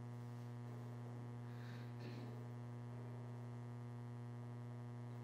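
Steady low electrical mains hum with a faint buzz of evenly spaced overtones, carried by the audio chain.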